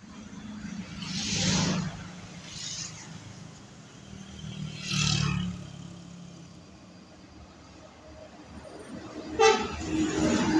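Road traffic passing, with vehicles going by about a second and a half in and again about five seconds in. About nine and a half seconds in, a loud vehicle horn blows suddenly and keeps sounding.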